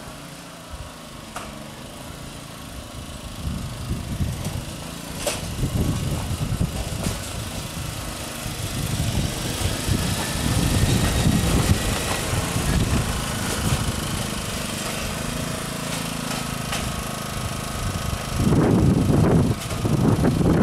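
A 7¼-inch gauge garden railway train on the move: the locomotive working and the wheels rolling on the track, with a low rumble that grows louder as it gets going and a few sharp clicks along the way.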